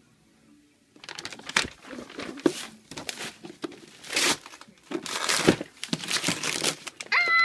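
Paper being torn and crumpled in irregular bursts as a present is unwrapped, starting about a second in. A brief high-pitched vocal cry near the end.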